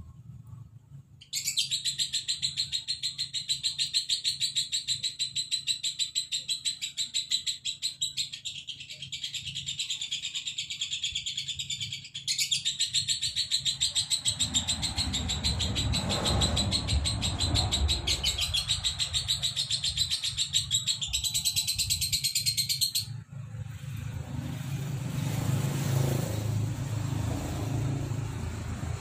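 Male lovebird singing a long, rapid, unbroken chattering song, the dry-voiced 'kering' style prized by Indonesian lovebird fanciers. It runs about twenty seconds with a brief break about twelve seconds in, then cuts off suddenly. A low rumble runs underneath in the second half.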